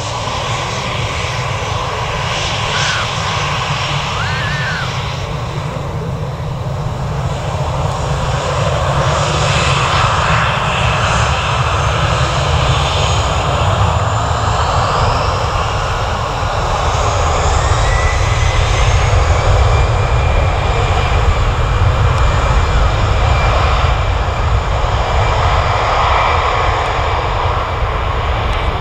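Airliner engines running loud and steady with a deep rumble that grows gradually louder, and a thin whine that rises in pitch about halfway through, then holds.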